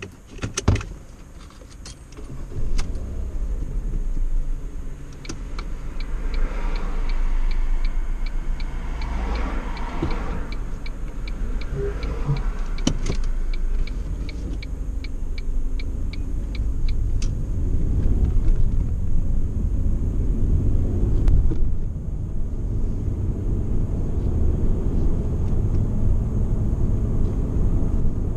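Ford Mondeo ST220 with its 3.0 V6 driving at a relaxed pace, heard from inside the cabin: a steady low engine and road rumble, with the engine itself quiet under light load. A knock comes right at the start, and a regular ticking about twice a second runs through the middle stretch.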